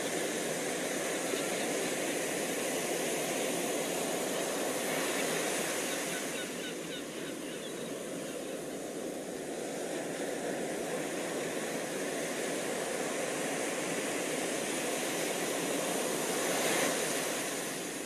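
Steady rushing outdoor background noise by the water, with a few faint high chirps about a third of the way through and a brief swell near the end.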